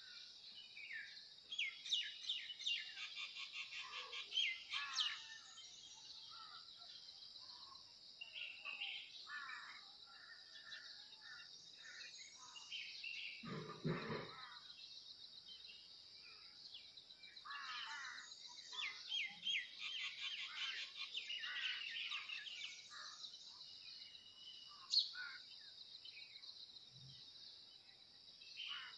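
Birds chirping and trilling in short bursts over a steady high-pitched hum, with one brief, deeper sound about halfway through.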